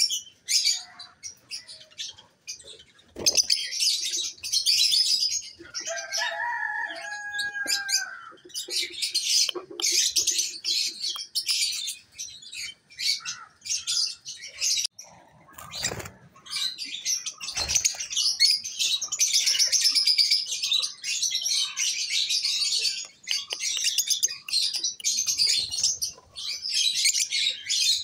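A flock of caged African lovebirds chattering with rapid, high-pitched chirps in overlapping bursts, with a few sharp knocks along the way.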